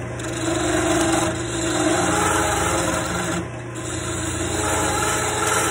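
Wood lathe running steadily while a hand-held lathe tool cuts a spinning wooden dowel, a scraping hiss over the motor's hum; the sound briefly drops about three and a half seconds in.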